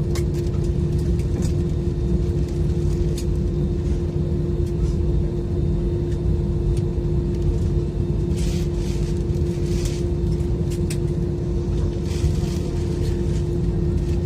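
Airliner cabin noise: a steady low rumble with a constant hum, and brief patches of hiss about two-thirds of the way through and near the end.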